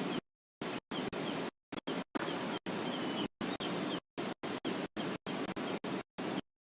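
Steady rush of river water with short, high bird chirps, often in pairs, several times a second or so apart. The whole sound cuts out to silence for split seconds again and again.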